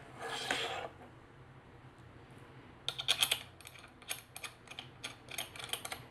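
A short rustle, then from about three seconds in a run of quick light metallic clicks, several a second, from a small hand tool turning screws into the metal top plate of a camera cage.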